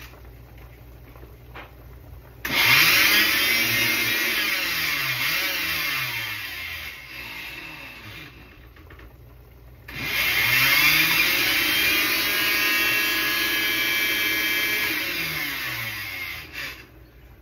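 Electric grinder grinding chiles, garlic and spices in two runs of about six seconds each, its motor pitch swelling and sagging as it works. It is failing to grind, which the cook guesses may be because it is set too tight.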